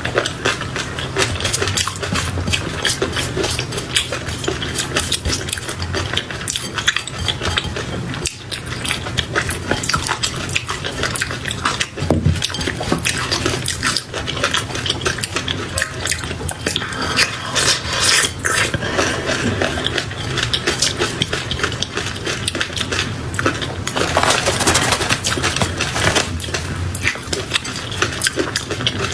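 Close-up wet, sticky chewing and mouth sounds of someone eating raw shrimp in peanut sauce: a steady stream of small clicks and smacks, a little louder twice in the second half.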